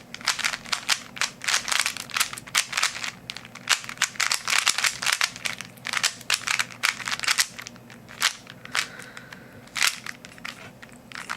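Plastic Rubik's Cube being scrambled: rapid clicking and clacking as its layers are twisted, several turns a second, thinning to a few scattered clicks in the last few seconds.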